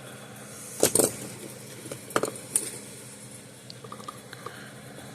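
Sharp clicks and taps of a small electronic component and circuit board being handled while its leads are pushed into the board's holes: two close clicks about a second in, two more a little after two seconds, then a few faint ticks, over a steady low hum.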